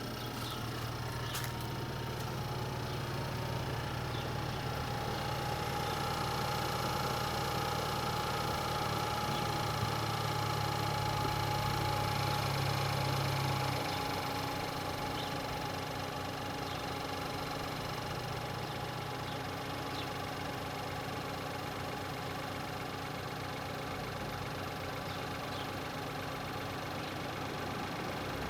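BMW 320i F30's 2.0-litre turbo four-cylinder petrol engine idling with a diesel-like clatter that never fully goes away, which the owner suspects comes from the timing chain or hydraulic lifters; the dealer calls it normal. About halfway through it settles a little lower and quieter.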